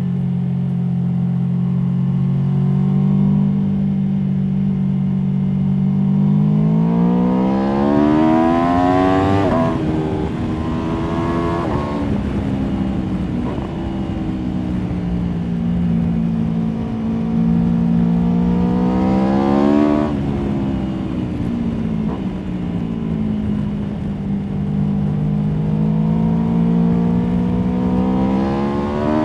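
Aprilia Tuono V4 motorcycle's V4 engine under way. It runs at a steady low pitch for about six seconds, then the revs climb to a peak around ten seconds and drop sharply. They ease down, climb again to a peak around twenty seconds and fall off, then rise once more near the end.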